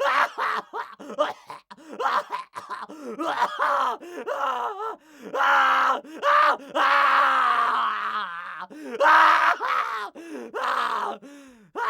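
A man crying out in pain again and again, a rapid string of short strained cries and groans. About seven seconds in comes one drawn-out cry that sinks in pitch.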